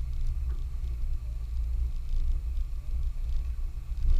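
Off-road 4x4's engine and drivetrain running as a low, steady rumble while it drives a dirt trail, with faint scattered ticks and rattles.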